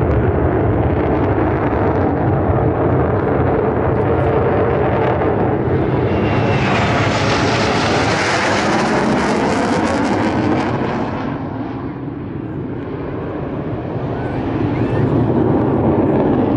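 Jet engine roar from USAF Thunderbirds F-16s flying past. The roar swells and brightens with a falling whine from about seven to eleven seconds in, dips, then builds again near the end.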